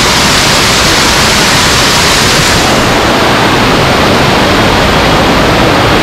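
Loud, steady roar of a waterfall's rushing water. The highest hiss dulls a little about halfway through.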